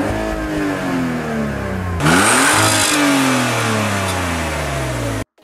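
Car engine revved while parked: the revs fall away from a high rev at the start, then a second sharp blip about two seconds in that slowly dies back down, heard at the exhaust tips. The sound cuts off suddenly just before the end.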